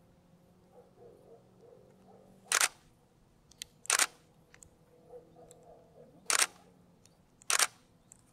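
Four sharp shutter clicks of a single-lens reflex camera, spaced about one to two and a half seconds apart.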